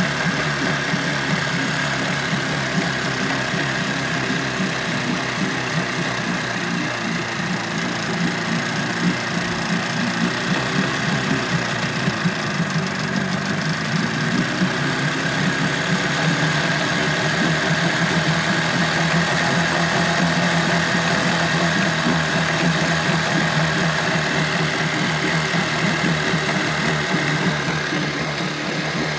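Mercury 25XD two-stroke outboard motor running in a water test barrel with a buzzy, dirt-bike-like note. It idles steadily, and its speed comes up a little past the middle.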